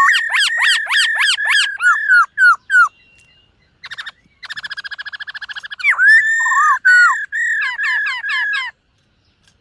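Black-throated laughingthrush singing: loud runs of clear whistles, each slurring down, several a second, broken about halfway by a short pause and then a fast buzzy rattle. The whistling resumes and stops a little before the end.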